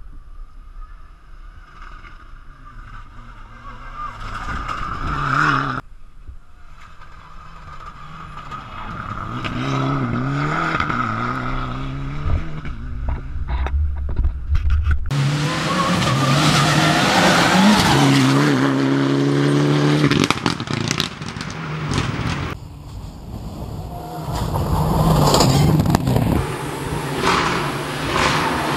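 Rally car engine revving hard, climbing in pitch and dropping back again and again as it changes gear, heard across several cut-together passes. It grows louder from about halfway through.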